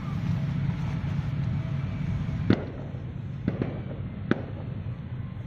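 A steady low rumble that fades about halfway in, then four sharp, short pops like firecrackers going off.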